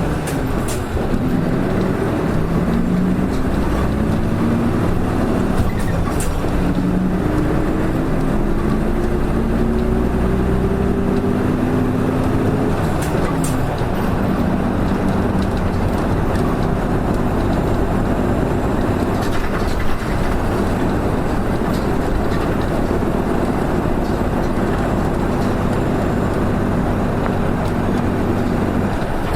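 Diesel engine and drivetrain of a PKG-RA274MAN city bus, heard from inside the cabin, accelerating away from a stop: rising tones that climb and drop back at each gear change over the first half, then running steadily. This is the bus's unusual running noise that earns it its 'abnormal-noise bus' label.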